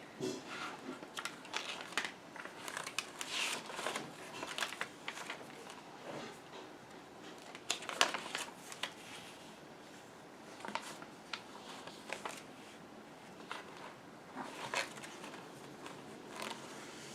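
Paper crinkling and rustling with scattered small clicks, as journal pages and decorating materials are handled, at an irregular pace.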